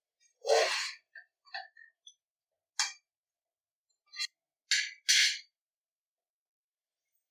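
Metal ladle stirring cauliflower florets and thick masala in an aluminium pressure cooker: a series of short scrapes and knocks against the pot, the loudest about half a second in, stopping a little past five seconds.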